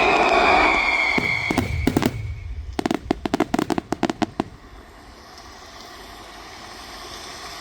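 Aerial fireworks bursting: the accompanying show music fades out, a few bangs follow, and then a rapid string of about fifteen sharp cracks over roughly a second and a half before the bursts stop.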